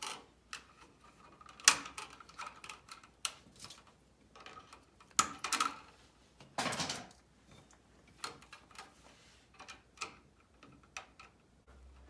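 Irregular clicks and a few short scrapes of pliers working a copper electrical wire, with the loudest scrape about five to seven seconds in.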